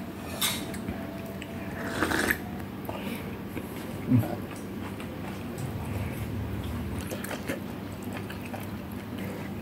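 Close-up eating sounds: a man sips a drink, then picks at and chews bone-in meat in broth with his fingers. There is a dull knock about four seconds in.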